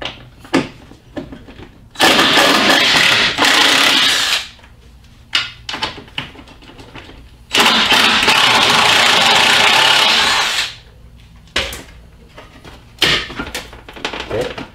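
Power impact wrench running in two bursts of about two and a half and three seconds, backing out 10 mm bolts, with a few short clicks and knocks of tool and bolts between.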